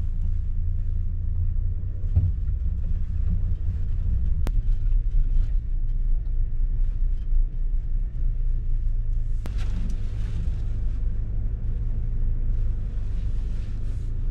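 Steady low rumble of an engine running, with some faint rustling about two-thirds of the way through and near the end.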